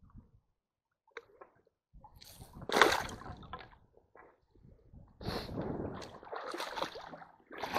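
Shallow stream water splashing and sloshing as a hand net and gloved hands move through it. It is quiet for about two seconds, then comes a burst of splashes, the loudest about three seconds in, and from about five seconds a longer run of sloshing.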